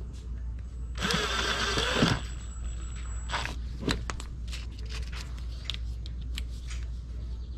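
Cordless drill/driver runs for about a second, lightly driving a screw into the plastic wheel-well splash panel. It is followed by scattered light clicks and taps from handling the tool and panel.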